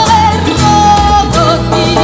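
A woman singing a song, her melody bending and wavering, with one long held note near the start, over a band of bass and plucked strings.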